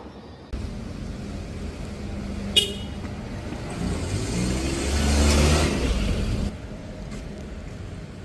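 Street traffic: a motor vehicle passes close by, its engine swelling and fading, with a short sharp high beep about two and a half seconds in.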